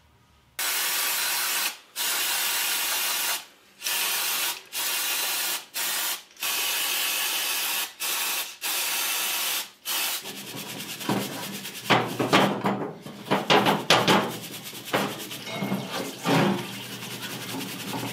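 Aerosol parts cleaner sprayed in about eight hissing bursts, each a second or so long with short breaks between, onto small fuel-system parts. About ten seconds in, the spraying stops and brush scrubbing of the parts in the parts washer's basin takes over, in quick uneven strokes.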